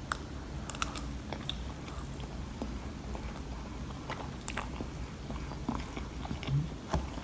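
A person chewing a mouthful of soft mug cake, with small mouth clicks scattered through, over a low steady hum.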